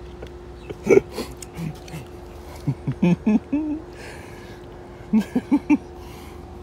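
A man's stifled snickering in short bursts, with four quick ones near the end, over a steady faint hum.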